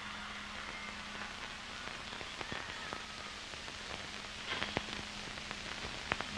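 A quiet pause in a marching band's show: a faint, steady hiss with a low hum, as from an old videotape recording of a stadium. There are a few sharp clicks between about four and a half and six seconds in.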